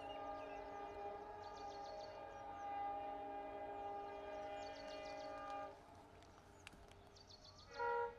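Faint horn of a WDP 4B diesel locomotive sounding one long, steady multi-tone blast that cuts off about two-thirds of the way through, then a short, louder toot near the end.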